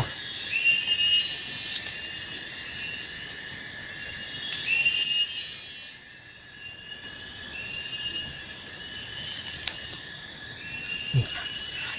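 Steady high-pitched chorus of tropical insects, with a short repeated call every few seconds over a continuous shrill drone.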